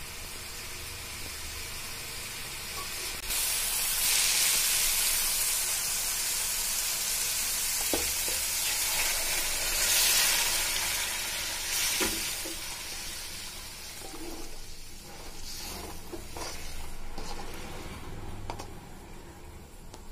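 Vegetable masala frying in a kadai. About three seconds in, water is poured into the hot pan and it hisses and sizzles loudly, with a couple of taps from the metal slotted ladle. After about twelve seconds it settles to a quieter sizzle.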